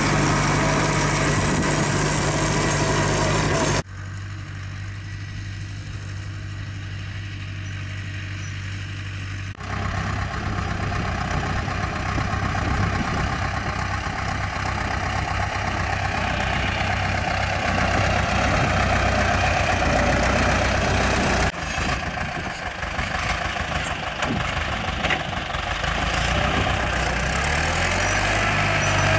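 Ursus C-355 tractor's two-cylinder diesel engine running steadily while it pulls and drives a manure spreader. The sound drops abruptly about four seconds in, comes back up near ten seconds, and dips again a little past twenty seconds.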